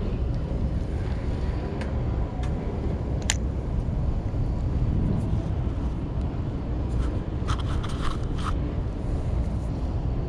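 Steady low rumble of wind on the microphone, with a few light clicks from handling the spinning rod and reel, a cluster of them about seven to eight seconds in.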